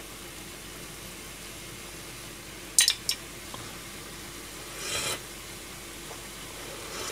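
Metal spoon scraping and knocking against a frying pan of simmering onions and shirataki noodles, over the steady faint hiss of the simmering pan. Two sharp clinks come close together about three seconds in, and a softer scrape follows around five seconds.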